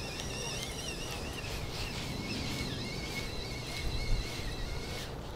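Songbirds warbling over a steady low rumble of wind on the microphone; one held note stops near the end.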